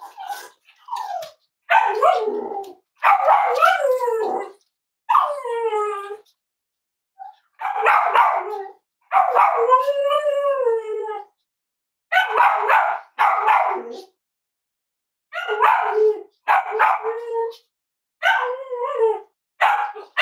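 Cavalier King Charles spaniel barking in a run of short, loud calls, mixed with a few longer drawn-out calls that waver in pitch.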